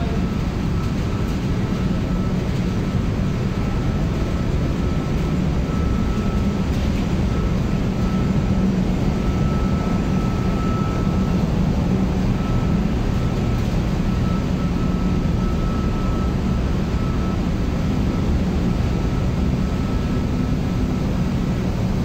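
Air handling units in a chilled-water HVAC plant running steadily: an even mechanical drone with a low hum and a faint high whine over it.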